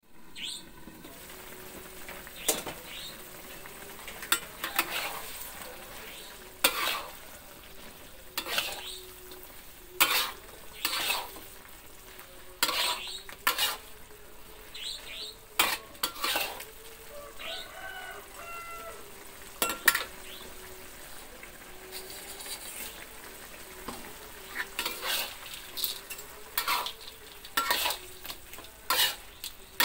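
A metal spatula stirs and scrapes eggplant and fried anchovies in an aluminium wok, with frequent clatters against the pan over a steady sizzle.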